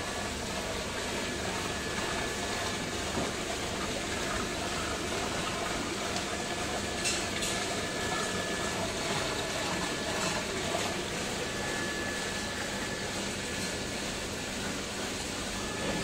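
Water rushing steadily into a combi drum filter chamber and churning its surface, with a faint steady high whine underneath.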